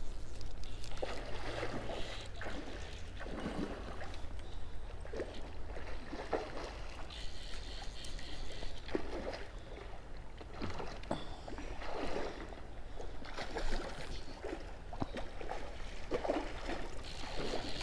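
Shallow river water splashing and sloshing as a hooked chinook salmon thrashes at the surface, in irregular splashes over a low steady rumble.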